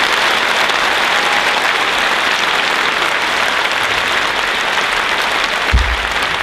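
Large audience applauding steadily, with a single low thump near the end.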